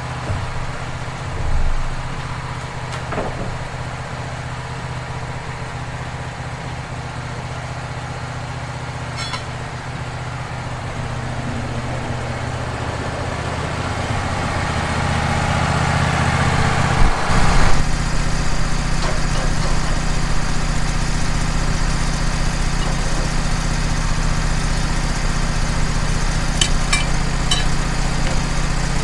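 Wood-Mizer LT15 band sawmill running steadily while its blade cuts along a log, the sound growing louder through the second half of the cut. A couple of knocks come past the middle, and a few light clicks near the end.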